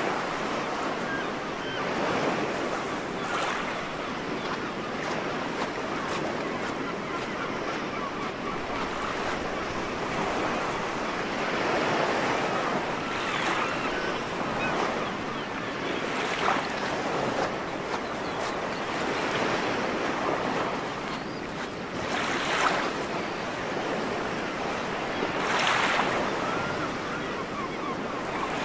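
Ocean waves washing onto a sandy shore: a continuous rush of surf that swells and fades every few seconds as each wave breaks.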